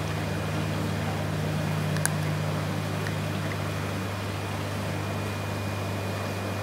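Steady low hum of running equipment, with a faint high tone over it and one small click about two seconds in.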